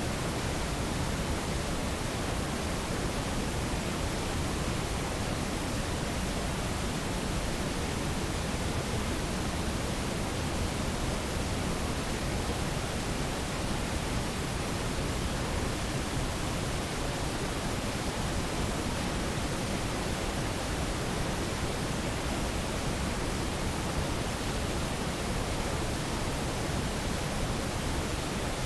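Steady, even hiss with no distinct knocks, footsteps or calls standing out of it.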